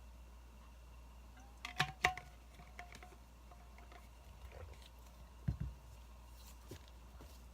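Wood fire crackling softly, with a few sharp pops and snaps about two seconds in and a low thud a little after halfway, over a faint steady low rumble.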